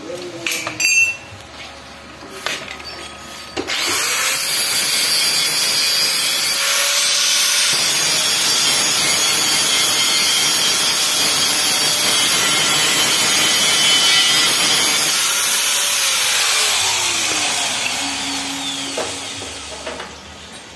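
Electric angle grinder spinning up about three and a half seconds in and grinding steel on the gate for about twelve seconds, then winding down with a falling whine. A few light knocks come before it starts.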